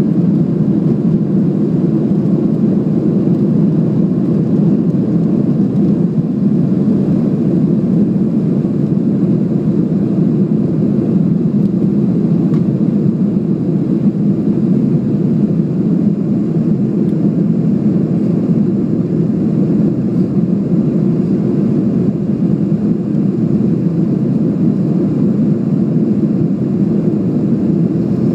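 Cabin noise of a Boeing 737 jet airliner at takeoff power during liftoff and the initial climb: the engines and rushing air make a loud, steady, low-pitched noise that does not change.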